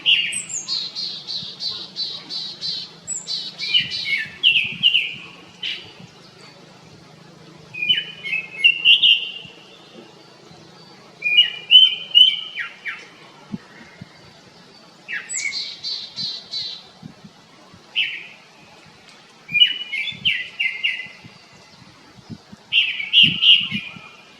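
Japanese thrush (Turdus cardis) singing: short, varied phrases of quick repeated whistled notes, one phrase every few seconds.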